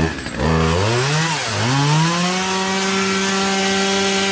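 Two-stroke gas chainsaw engine catching and running. Its pitch rises, dips briefly about a second and a half in, then climbs and holds at a steady high speed.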